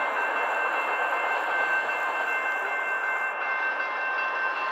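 Railroad grade-crossing warning bell ringing with a steady high tone over the noise of a passing train. The train noise thins out about two-thirds of the way through as the train clears the crossing, while the bell keeps ringing.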